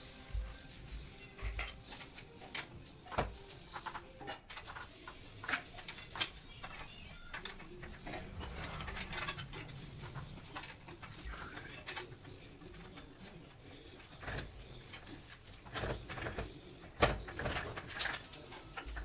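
Scattered metallic clicks, taps and clatter of a spanner working the rear axle nuts of an upside-down bicycle and the rear wheel being loosened and taken off, with the loudest knocks near the end.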